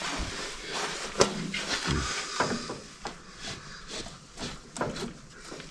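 Hand work at a tractor's battery terminals: scattered clicks and knocks of a wrench and cable clamps being handled, with a sharp click about a second in and a couple of dull thumps.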